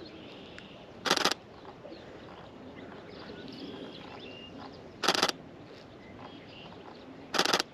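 Camera shutter firing three short rapid bursts, each about a quarter second long: about a second in, about five seconds in and near the end. Between them, faint bird chirps over quiet marsh ambience.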